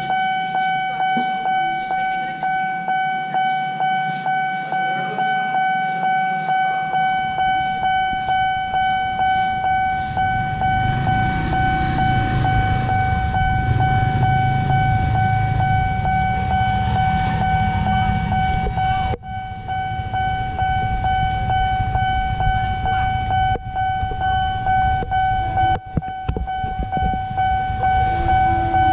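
Railway level-crossing warning bell ringing in a steady, fast repeating electronic ding, about two strikes a second. A low rumble swells up in the middle and fades.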